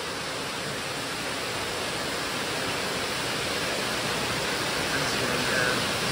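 Steady rushing hiss of water flowing through stainless-steel fish-rearing troughs.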